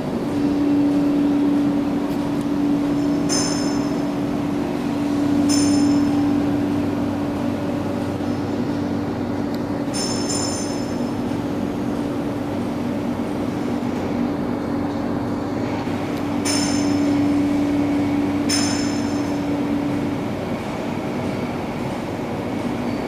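Steady industrial machinery hum with a constant drone, broken about six times by short, high metallic rings or clinks; the drone stops a few seconds before the end.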